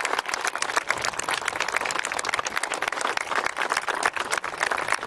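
Crowd applauding: many hands clapping at once in a dense, continuous patter.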